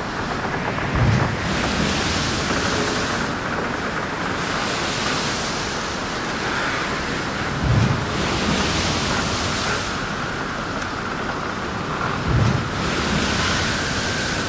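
Wind on the microphone over the steady wash of river water at the bank, the hiss swelling and fading every few seconds, with three short low buffets of wind.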